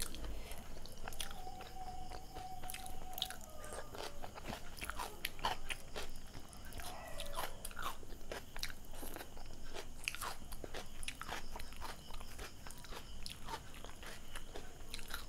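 Close-miked chewing of pav bhaji and soft bread roll eaten by hand: many wet mouth clicks and smacks in quick, irregular succession.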